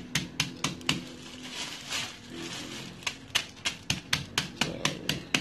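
Aluminium meat-tenderizer mallet rapidly tapping chocolate sandwich cookies in a plastic bag on a tiled floor, crushing them into coarse chunks. About four strikes a second, with a pause of about two seconds in the middle.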